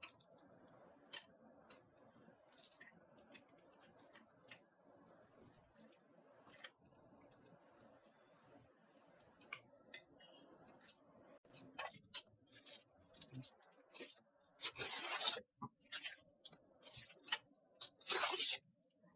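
Scattered light clicks and taps of screws and a screwdriver on a PC case as a radiator is screwed into its top. Two louder short scraping or rustling noises come near the end.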